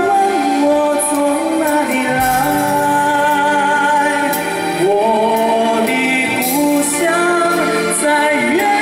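A male singer singing a slow Mandarin ballad live into a handheld microphone, with long held notes and slides between pitches, over live band accompaniment amplified through a stage sound system.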